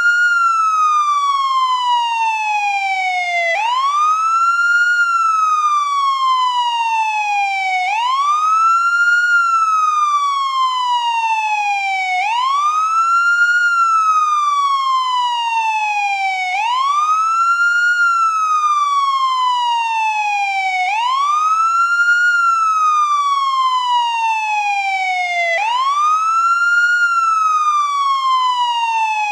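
American police car siren on its wail setting: a loud tone that sweeps quickly up in about a second, then slides slowly down over about three seconds, repeating about every four seconds.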